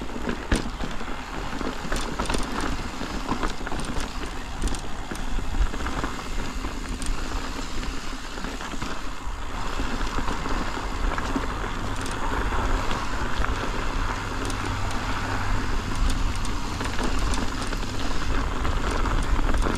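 Ibis Ripmo mountain bike riding over a rocky trail: steady wind rumble on the microphone, with tyre noise and scattered clicks and rattles from the bike.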